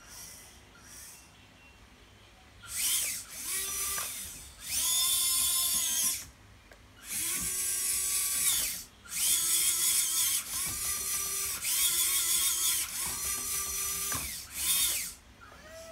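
Electric hydraulic pump of a 1/14-scale RC excavator whining in about eight bursts of one to two seconds, starting a couple of seconds in. Each burst rises in pitch as the pump spins up and falls as it stops, while the boom, arm and bucket cylinders move.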